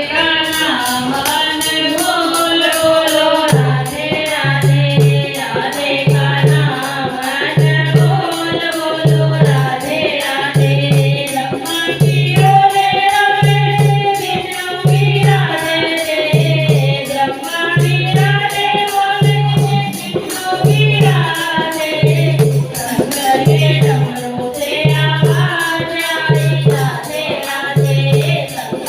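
Hindi devotional bhajan: a sung melody over a steady low drumbeat about every second and a half, with quick jingling percussion on top.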